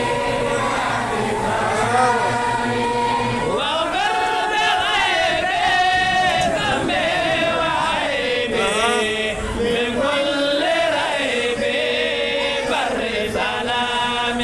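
Voices chanting together in a melodic religious chant, with long held notes that rise and fall.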